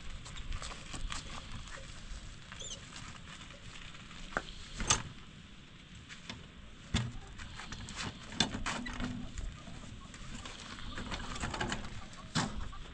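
Scattered light knocks and taps at irregular intervals, the sharpest about five, seven and eight and a half seconds in, with a brief faint chirp about two and a half seconds in.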